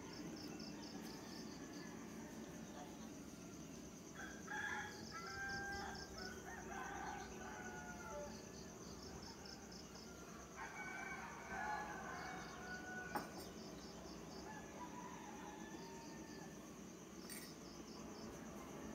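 Faint rooster crows, one starting about four seconds in and another about ten seconds in, over a steady high-pitched insect trill.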